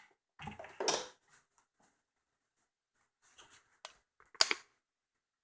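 A few sharp clicks and knocks of hard objects being handled. The loudest come about a second in and about four and a half seconds in, with fainter ticks between and quiet gaps.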